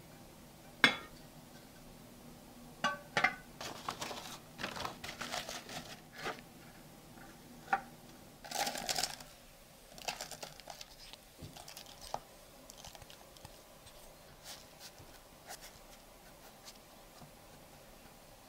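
Kitchen handling sounds: a metal cake pan set down with a sharp knock, paper crinkling, then crushed buttered digestive-biscuit crumbs scraped from a bowl into the pan with a spatula and spread, in soft scrapes and light ticks that thin out toward the end.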